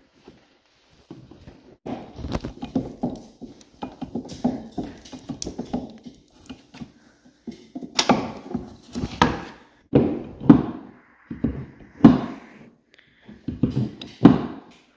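Hand grease gun being worked on a snowmobile's suspension grease fittings. A quick run of light clicks and rattles is followed, in the second half, by several louder clunks.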